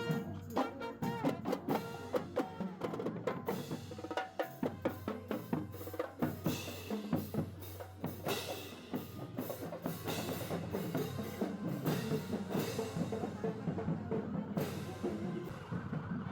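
Marching band drums, snare and bass drums, beating a steady parade rhythm with rolls.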